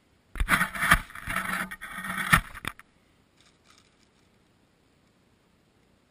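Close-up rustling and scraping of a plastic bag and wooden pieces being handled, with two sharp knocks, lasting about two and a half seconds before stopping abruptly.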